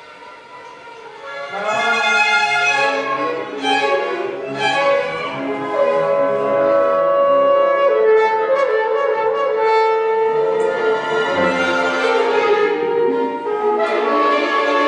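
Small orchestra with violins and double bass playing: soft at first, then the full ensemble comes in about a second and a half in with sustained, held chords, thinning briefly near the end before swelling again.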